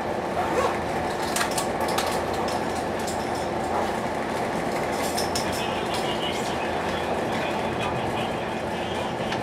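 Sotetsu 7000-series electric train running at a reduced 45 km/h, heard from inside the passenger car: a steady running rumble with a few sharp clicks from the wheels.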